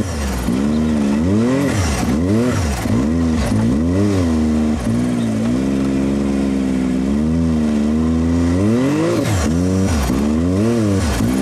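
Can-Am Maverick X RC Turbo RR side-by-side's turbocharged three-cylinder engine working hard, heard from the cab, its revs rising and falling again and again while it drives up a sandy slope in four-wheel drive with the front diff locked.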